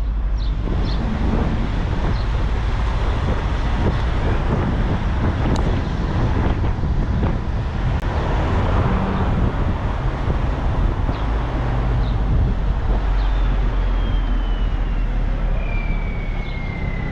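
Car engine and tyre noise heard from inside a car driving on a race circuit, steady throughout. Near the end a high whine slowly falls in pitch.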